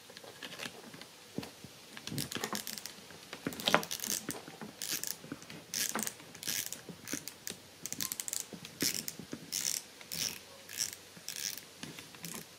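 Front drag knob of a Dragon spinning reel clicking as it is screwed down to hold the spool on, in short ratcheting bursts about two a second.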